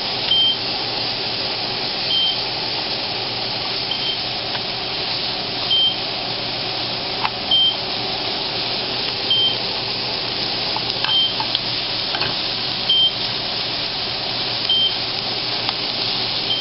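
Chicken frying on high heat in a pan, a steady sizzle, with a short high electronic beep repeating about every two seconds and a few light clicks.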